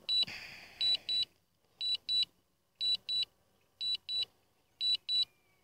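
DJI Phantom 3 remote controller beeping during return-to-home: a high double beep repeated about once a second, the alert that the drone is in its return-to-home sequence.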